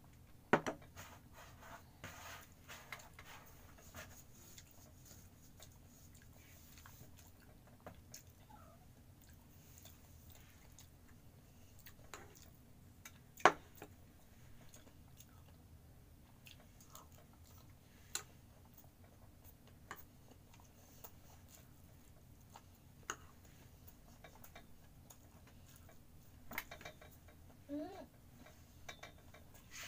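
Eating sounds: quiet chewing with scattered sharp clinks of a metal spoon against ceramic bowls and plates, the loudest clink about halfway through.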